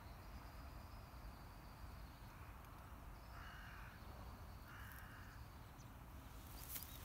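A bird calls faintly twice in the middle, each call about half a second long, over near-silent outdoor background.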